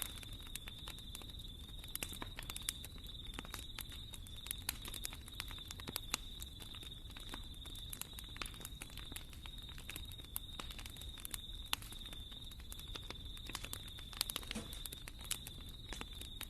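Wood fire crackling in a fireplace: frequent irregular sharp pops and snaps over a low, steady rumble of flames.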